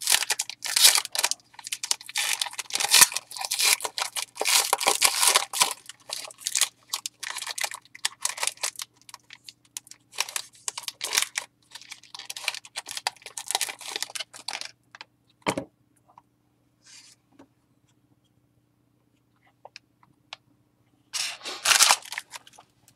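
Foil wrapper of a trading-card pack crinkling and tearing as it is opened by hand, a dense crackle for about fifteen seconds. It then goes quiet apart from a single knock and a few faint handling sounds, with another short burst of crinkling near the end.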